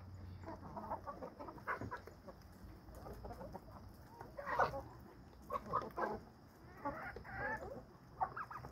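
Flock of chickens clucking quietly in short, scattered calls, with a few louder ones about four and a half seconds in and again around six to seven and a half seconds.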